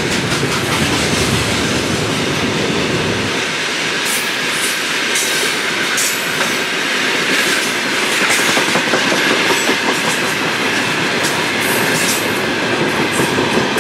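Freight train of open gondola wagons rolling past, wheels clacking over the rail joints with a steady rumble. The deep part of the rumble thins out about three seconds in.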